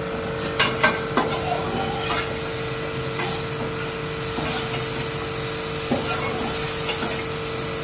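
A steel spoon scrapes and clinks against a stainless steel pan as chicken and masala are stirred and fried, with a quick run of sharp clinks in the first second or so and a few more later. A steady frying sizzle and a steady hum run underneath.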